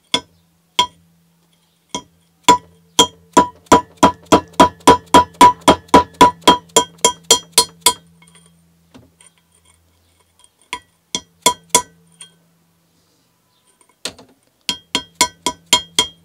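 Mallet tapping on a freehub removal tool fitted onto a Cannondale Headshok part, each blow ringing with a metallic ping. A few single taps give way to a quick run of about four taps a second for some five seconds, then after a pause a few more and another run near the end, driving the corroded piece into the body to free it.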